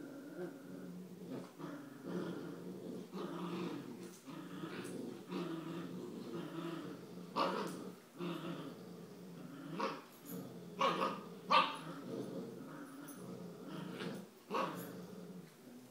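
Puppies play-growling continuously, with several sharp barks and yips breaking in, most of them in the second half.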